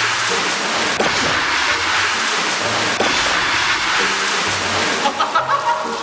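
Edited background music with a light beat every two seconds, over a steady rush of splashing water that thins out about five seconds in.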